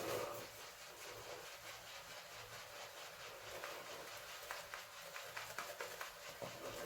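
Synthetic shaving brush working a wet shaving-soap lather, a fast run of soft wet squishing and rubbing strokes with a louder swish right at the start.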